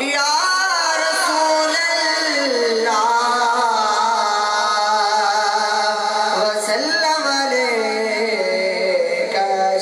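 A young man's solo voice singing a devotional durood (salutation on the Prophet) into a microphone, slow and melismatic, with long held notes that bend and glide in pitch.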